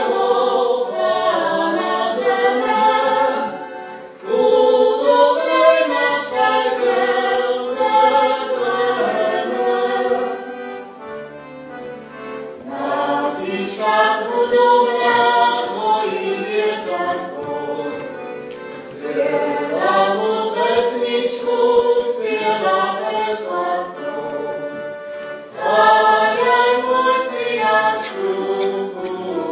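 Voices singing together like a small choir, a slow sung melody in phrases with short breaks about 4, 11, 18 and 25 seconds in.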